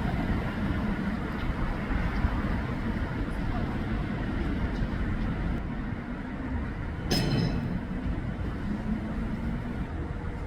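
Steady city street noise, a dense low traffic rumble, with one short sharp sound that rings briefly about seven seconds in.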